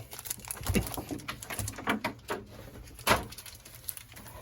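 A handful of short knocks and handling sounds, as of things being moved and set down on a table. The loudest is a sharp knock about three seconds in.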